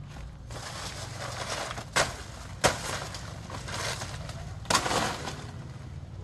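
A long knife chopping into a banana plant's stalk: three sharp chops, the first two close together and the third about two seconds later, with banana leaves rustling between them.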